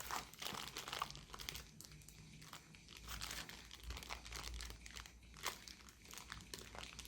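Parcel packaging crinkling and rustling in the hands as a pack of JST connector leads is unwrapped, with scattered small crackles and clicks.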